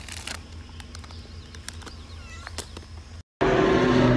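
A cat gives a short, faint meow about two seconds in, among light clicks and crackles as a chip bag is pulled off its head. After an abrupt cut, a much louder steady low hum with a few held tones takes over.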